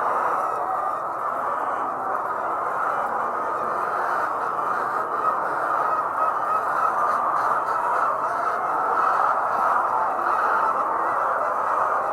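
A large flock of layer hens clucking and squawking together in a steady, continuous din.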